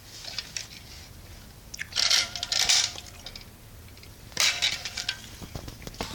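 Small electric motor and gears of a toy radio-controlled car whirring in two short bursts of about a second each, with crackling and clicks.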